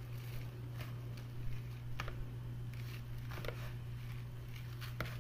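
Hands pulling apart and rubbing shredded kunafa dough in a plastic basin, giving scattered soft crackles and ticks over a steady low hum.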